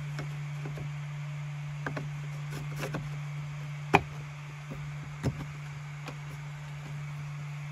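A few light knocks and scrapes as a ceramic tile is set down and pushed into place on a laser engraver's wooden bed, with a sharper knock about halfway through. A steady low hum runs underneath.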